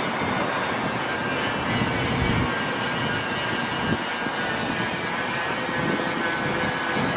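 Steady mechanical running noise: a dense, even rush with faint steady tones riding on it.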